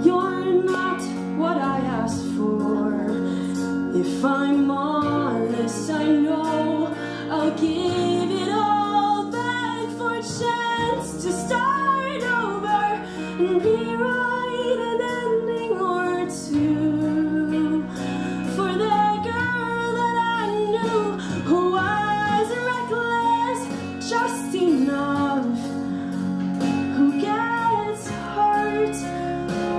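A girl singing a solo into a handheld microphone, amplified, over sustained instrumental accompaniment.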